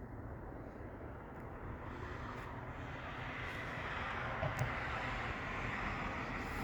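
Steady noise of an approaching vehicle, swelling louder through the second half, with a faint sharp pop about four and a half seconds in.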